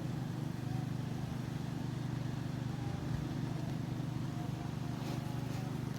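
A motor vehicle's engine running steadily, a low drone with a fine rapid flutter and no change in pitch.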